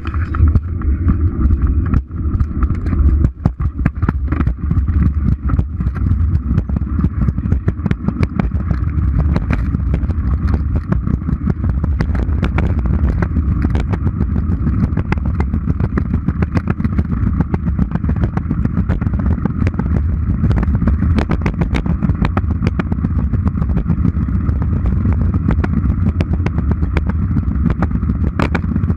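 Razor kick scooter's wheels rolling fast over a concrete sidewalk: a steady rumble with frequent clicks and rattles.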